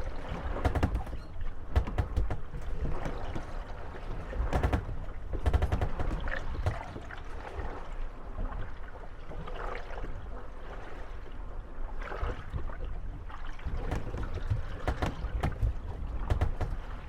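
Moored wooden gondolas rocking on the waves, creaking and knocking against each other at irregular moments, over a steady low rumble of wind and water.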